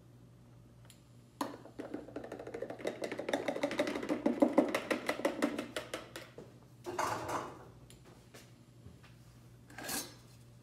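A plastic food processor bowl and its blade being handled and scraped: a run of rapid clicks and scrapes lasting about four seconds, then two short knocks, one near the middle and one near the end.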